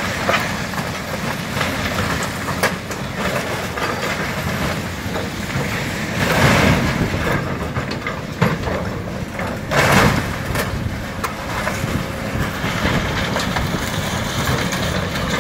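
Heavy construction machinery running, with scattered clanks and knocks and two louder, noisier surges about six and ten seconds in.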